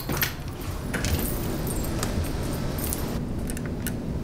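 Light metallic jingling with scattered small clicks over a steady low hum.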